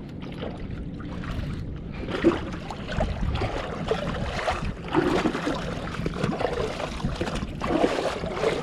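Water splashing and lapping in irregular bursts, over a steady low rumble of wind on the microphone.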